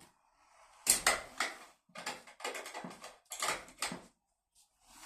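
Sliding door run along its track against a newly fitted GEZE sliding door closer, with a sharp knock about a second in and then several short rattling, rolling stretches.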